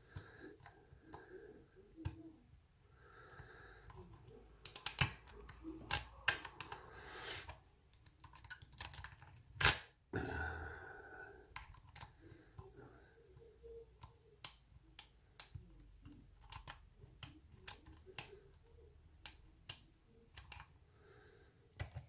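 Hook pick and tension wrench working the pins of a brass pin-tumbler lock cylinder: small, irregular metallic clicks and light scrapes as the pins are lifted, with one sharper click near the middle.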